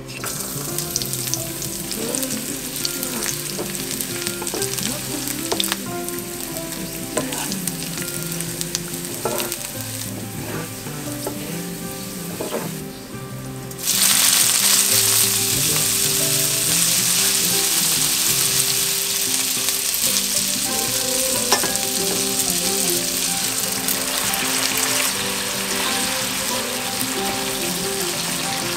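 Whole garlic cloves sizzling in olive oil in a nonstick frying pan, with scattered clicks of stirring. About halfway through, the sizzle suddenly jumps much louder as wet boiled pasta drops into the hot oil, then it carries on as the pasta is tossed with a wooden spatula.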